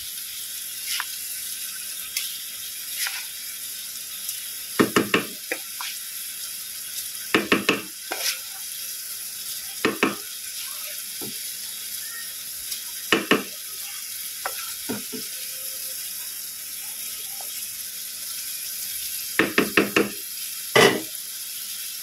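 Steady sizzle of food frying in a pan on the stove, broken every few seconds by short clusters of metal clinks and scrapes from a spoon against the cooking vessel.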